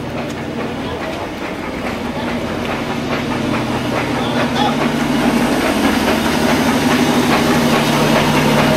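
Motor-driven grain mill running with a steady hum and a fast rattling clatter, growing louder over the first half and then holding.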